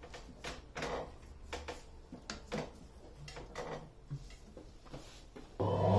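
Scattered light knocks and clicks of a vacuum hose fitting being handled and pushed onto a disc sander's dust port, then near the end a motor switches on and runs loudly and steadily.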